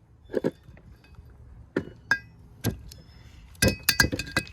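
Sharp metal clinks and taps that ring briefly: four spaced strikes, then a quick run of about six or seven near the end. It is metal tools working on the parts of an aluminium cylinder head being taken apart.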